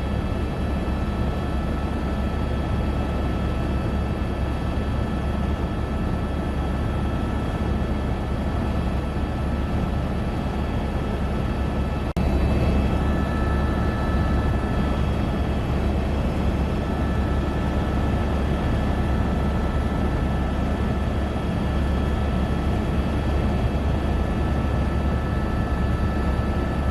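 Helicopter running in flight: a steady deep drone with several constant whining tones over it. It dips for an instant about twelve seconds in and then carries on slightly louder.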